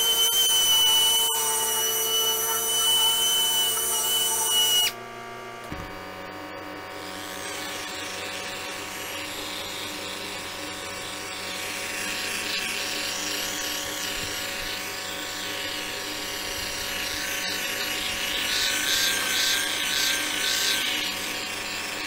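Handheld electric power tool sanding a plastic headlight lens, its motor whining steadily at high speed. About five seconds in it drops suddenly to a quieter, lower-pitched running tone that goes on, wavering and growing a little louder near the end.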